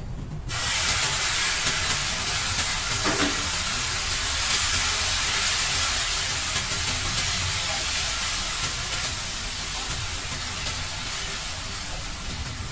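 Sauce poured into a hot frying pan sizzling loudly, starting suddenly about half a second in. It keeps hissing steadily while it is stirred with a wooden spatula and slowly dies down.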